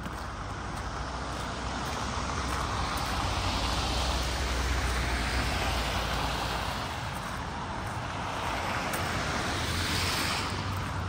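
Road traffic: vehicles passing on a road, a rush of tyre noise over a low engine rumble that swells to a peak about four or five seconds in, eases off, and swells again near the end.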